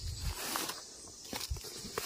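Footsteps on dry leaf litter: two heavy steps about a second and a half apart, with leaves crackling underfoot.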